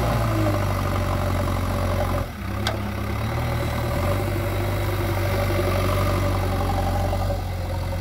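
JCB 3DX backhoe loader's diesel engine running under load as its front bucket digs into a soil pile and lifts it. The engine note dips briefly a little over two seconds in, and a single sharp click follows.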